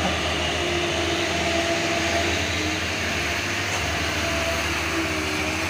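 Diesel engines of loaded cargo trucks pulling past close by on the climb: a steady low rumble with a held, slightly wavering whine.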